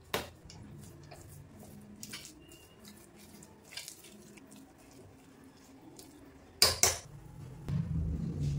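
A spoon scraping and clinking against an aluminium pressure cooker while stirring salt into cooked millet, with two sharp knocks of the spoon against the pot about two seconds from the end. A low, steady rumble sets in during the last second.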